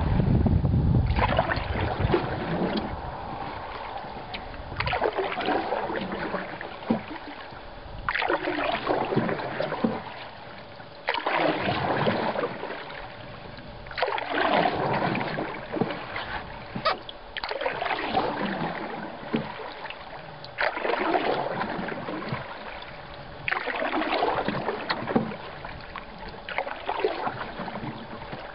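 Canoe paddle strokes: water swishes and gurgles past the paddle and along the cedar strip hull in a slow rhythm, one stroke about every three seconds, with a few small knocks among them.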